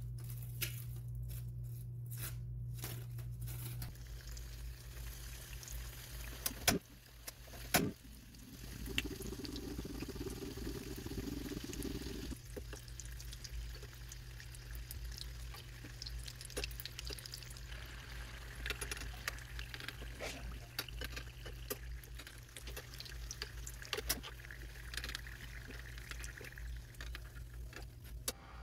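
Samosas deep-frying in hot oil in a small pan, the oil sizzling with a steady fine crackle. Two sharp knocks come about seven and eight seconds in.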